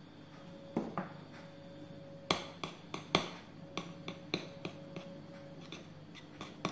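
Metal teaspoon clinking and scraping against a porcelain saucer as gel colouring is stirred in, with irregular sharp clinks several times over, the loudest about two and three seconds in.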